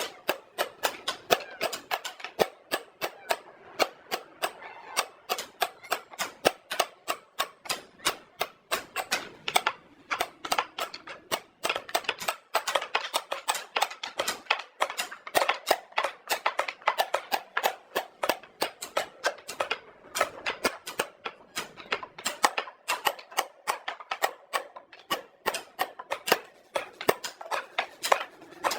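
Workshop tools knocking and tapping on wood: rapid, irregular sharp knocks, several a second, with no pause.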